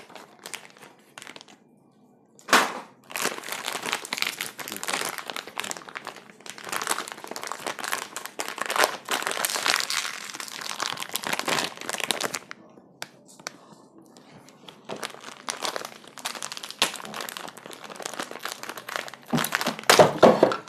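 Clear plastic bag being torn open and crinkled by hand, in bursts of crackling rustle, with a sudden loud crackle about two and a half seconds in.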